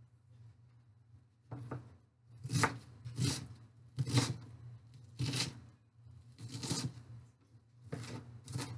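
Chef's knife chopping an onion on a cutting board: about eight firm strokes, roughly one a second, starting about a second and a half in.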